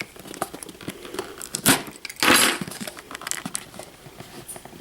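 Product packaging being opened by hand: scattered small clicks and crinkling of cardboard and plastic, with a sharp snap about a second and a half in and a short tearing rustle just after.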